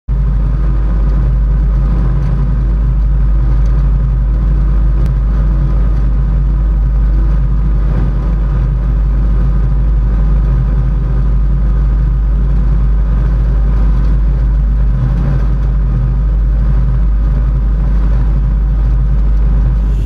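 Steady, loud rumble of a John Deere harvest machine's diesel engine and drivetrain running at working speed, picked up by a camera mounted on the machine, with faint steady whine tones above it.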